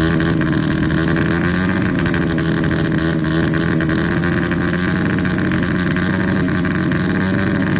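Engine noise from tuned 130cc four-stroke underbone drag bikes, held at a steady pitch without rising or falling.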